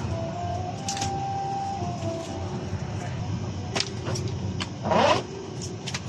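Steady hum of an airliner cabin on the ground, with scattered clicks and knocks of luggage and overhead bins as passengers stow bags. A brief louder burst of noise about five seconds in.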